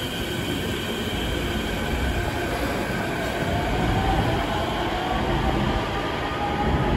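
A Busan–Gimhae light-rail train running with a steady rumble, its electric motor whine rising in pitch from about three seconds in as it gathers speed.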